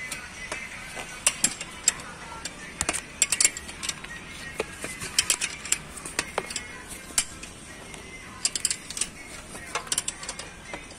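Irregular metallic clicks and clinks of a hand spanner working the nuts and bolts that hold a car's catalytic converter, as it is being unbolted.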